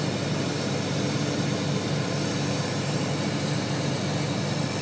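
Isuzu HTR box truck's diesel engine idling steadily, a constant low running hum with no knocks or clanks.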